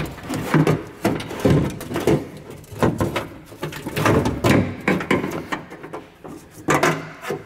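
Irregular clunks and rattles of a power window regulator and motor assembly, its cables and brackets knocking against the car door's sheet-metal inner panel as it is unclipped and worked out by hand.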